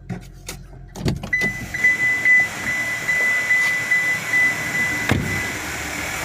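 Car door opening, then a steady high warning chime pulsing about twice a second with the engine running underneath. A thump near the end, after which the chime stops: the door shutting.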